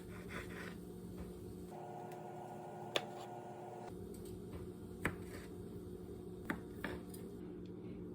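Quiet kitchen cooking sounds: a steady low hum with three sharp knocks or clicks, spaced a second or two apart, typical of utensils handled around a pan.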